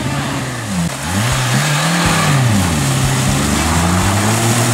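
Suzuki Samurai's engine revving up and down several times as the 4x4 drives through a muddy, water-filled rut. It gets louder about a second in, with a rushing wash of splashing over the engine.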